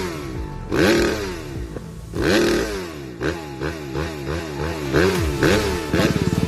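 Kawasaki KX250F four-stroke single-cylinder motocross engine being revved with throttle blips. Two long revs climb and fall back, then comes a quick run of short blips about three a second, settling into a steadier held speed near the end.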